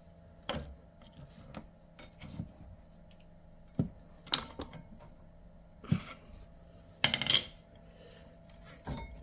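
Metal clinks, knocks and scrapes as a stuck front brake pad is worked loose and pulled out of the brake caliper, with a louder clatter about seven seconds in.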